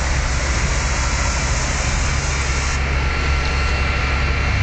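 Steady low rumble of a vehicle engine running, with no let-up.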